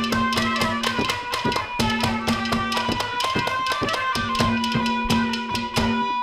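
Instrumental interlude of Haryanvi ragini folk music: a hand drum struck in fast finger strokes over held harmonium notes.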